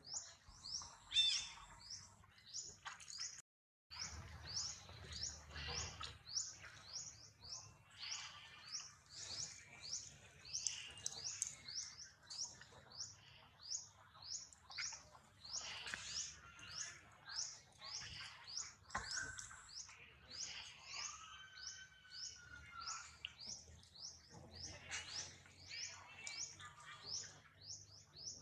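A bird repeating a short, high chirp about twice a second, with the sound dropping out briefly about three and a half seconds in.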